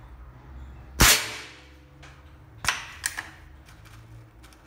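A gas-ram (gas-piston) air rifle, a CBC Nitro X 1000 in 5.5 mm with a 70 kg gas ram, fires one shot about a second in: a sharp, loud crack that rings out briefly. A smaller sharp knock and two light clicks follow about two seconds later.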